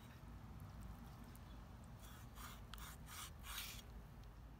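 Near silence: a faint low background hum, with a few soft rubbing sounds a little past halfway.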